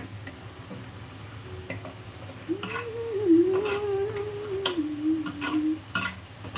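A steel ladle stirring and scraping thick masala in an aluminium pressure cooker, knocking against the pot several times. In the middle a wavering tone sounds for about three seconds, over a steady low hum.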